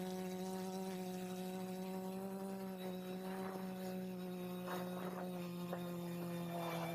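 Multirotor drone's motors and propellers humming at a steady pitch, heard from the camera on board, with a few brief rushes of wind noise in the second half.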